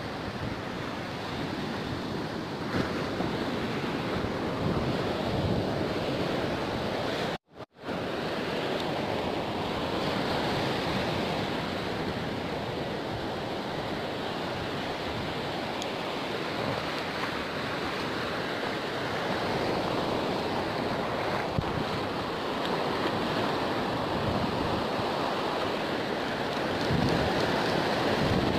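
Ocean surf breaking and washing up a sandy beach, with wind buffeting the microphone. The sound cuts out completely for a moment about seven and a half seconds in.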